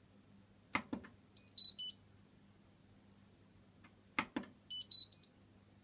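Hoover washing machine control panel: two clicks of a button press, then a short three-note electronic beep tune falling in pitch; about three seconds later, two more clicks and a three-note tune rising in pitch.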